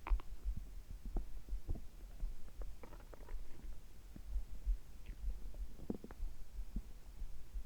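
Human stomach gurgling, with a heartbeat heard at the same time as repeated low thumps. Short gurgles come about three seconds in and again near six seconds.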